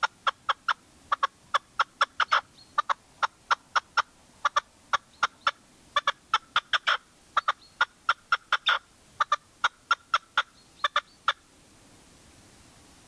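Caged decoy red-legged partridge calling: a long run of short, sharp notes at about three to four a second, bunched in clusters, that stops about eleven seconds in.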